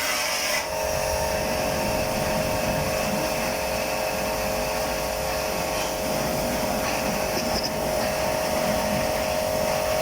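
Electric motor running steadily with a constant whine over a broad mechanical hiss.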